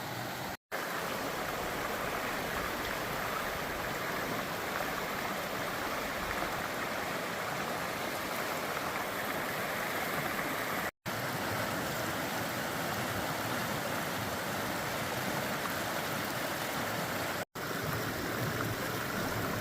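Steady rush of water from a river waterfall, an even hiss-like roar broken by three momentary drop-outs to silence: under a second in, about halfway, and near the end.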